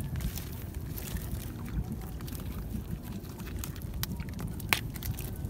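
Wind rumbling on the microphone, with scattered light clicks and knocks from a gill net being hauled in by hand over the side of a boat; one sharper click near the end.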